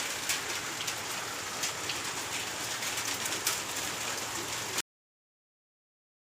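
Rain falling steadily at night, an even hiss with scattered drip ticks. It cuts off abruptly about five seconds in, leaving dead silence.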